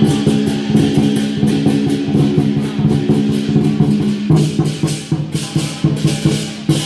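Lion dance percussion: a drum beating fast with crashing cymbals over a steady ringing tone.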